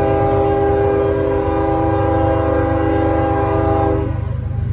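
CSX diesel freight locomotive's air horn sounding one long blast, a chord of several notes held steady, over a low rumble. It cuts off about four seconds in.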